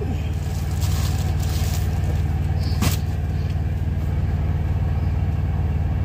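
Semi truck's diesel engine idling: a steady low hum. There is some light handling noise and a single sharp click about three seconds in.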